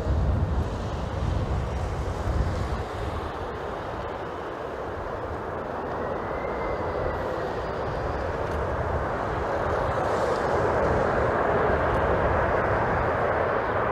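Jet airliner's engines, a steady rushing noise that grows louder as the aircraft approaches, with a faint whine about halfway through. Gusty wind buffets the microphone early on.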